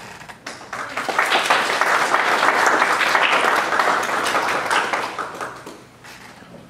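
Audience applauding. The clapping swells about a second in and dies away over the last couple of seconds.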